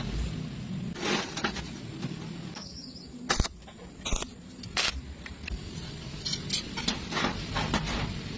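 Irregular sharp knocks and clicks from metal workpieces being handled and set down, a few of them louder.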